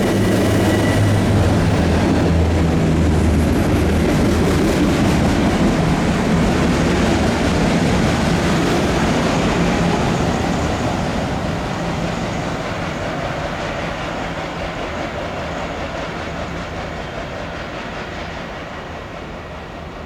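Long Island Rail Road train passing on the rails with a loud, steady rumble; a high whine dies out about a second in. From about halfway through the sound slowly fades as the train moves away.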